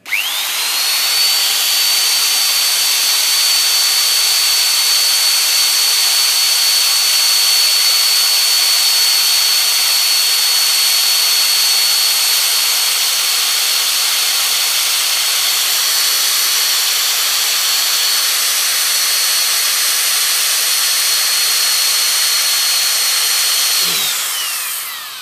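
Bosch corded electric drill spinning up, running at a steady high whine for about 24 seconds while a drill bit bores into a vulcanite bottle stopper, then winding down near the end.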